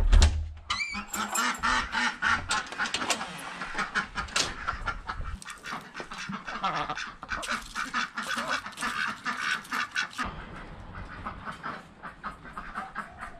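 Ducks quacking in a busy run of repeated calls that thins out after about ten seconds. A door knocks open right at the start.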